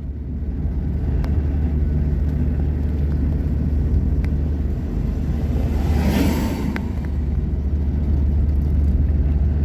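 Car driving at a steady pace, heard from inside the closed cabin: a continuous low engine and road drone, with a brief swell of tyre and road noise about six seconds in.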